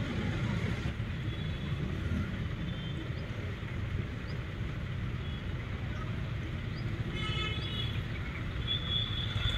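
Railway station ambience: a steady low rumble with faint bird chirps, and a short high-pitched toot about seven seconds in.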